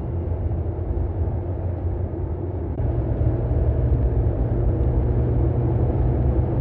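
Mercedes-AMG CLE 53's 3.0-litre turbocharged inline-six running as the car drives, a steady low engine note that gets louder about three seconds in.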